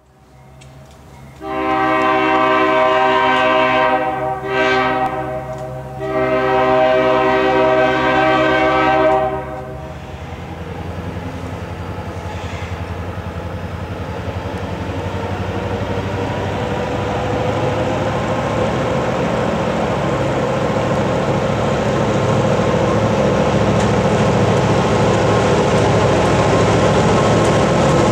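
EMD GP9 diesel locomotive sounding its horn: a long blast, a short one, then another long one. Its 16-cylinder 567 diesel engine's rumble then grows steadily louder as the locomotive approaches.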